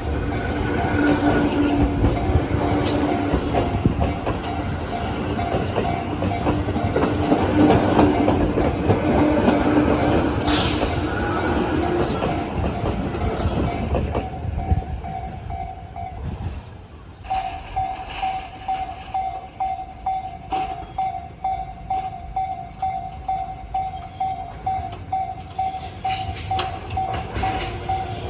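Tobu Tojo Line train passing over the level crossing, wheels clattering on the rails, dying away about fourteen seconds in. The crossing's electronic warning bell dings in a steady repeating rhythm throughout, stopping briefly about sixteen seconds in and then starting again.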